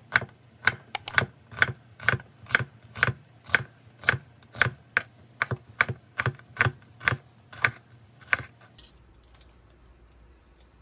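Kitchen knife slicing an onion on a plastic cutting board: a steady run of sharp knocks, about two a second, that stops about eight and a half seconds in.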